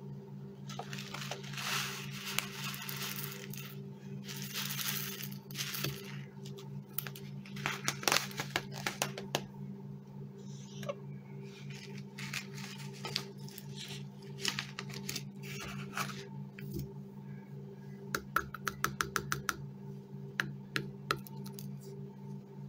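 A foil treat bag crinkling, then grain treat mix clattering into a plastic bowl, and a chicken pecking at the grains in the bowl with sharp taps, including a quick run of them near the end. A steady low hum runs underneath.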